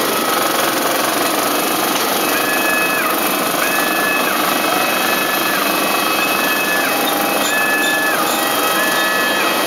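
Self-propelled passenger boarding stairs moving under their pedestrian-controlled drive: a steady mechanical running noise, with a two-tone warning beeper sounding about once a second from about two seconds in.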